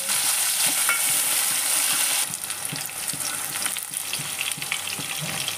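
Sliced onions sizzling in hot oil in an aluminium pot as they fry toward light golden, with a spatula stirring and scraping in short clicks. The sizzle drops a little in level about two seconds in.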